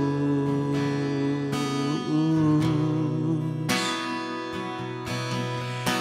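Instrumental break in a worship song: acoustic guitar playing sustained chords, which change about two seconds in and again near four seconds.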